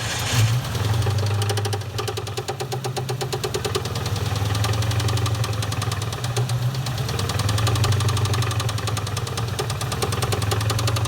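1997 Mustang GT's 4.6-litre two-valve V8 idling with its driver's-side valve cover off, with a steady, rapid knocking. It is the engine knock being diagnosed, which the owner suspects comes from loose hydraulic lash adjusters in the valve train.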